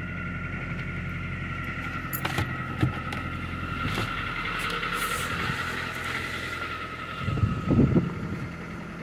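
2004 Toyota Corolla's four-cylinder engine idling steadily right after a hard cold start at about −23 °C, with a steady whine over the low hum. A few clicks, and a short burst of knocks near the end.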